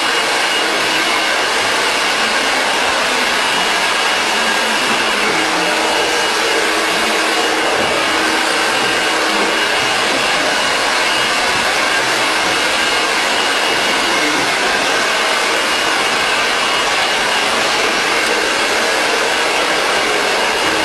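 Handheld hair dryer running steadily on a high setting, a continuous rush of air with a thin high whine, used to blow-dry sections of hair.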